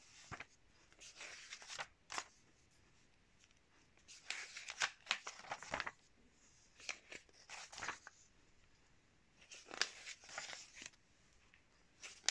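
Pages of a glossy magazine being turned by hand: a burst of paper rustling every second or two, about five in all.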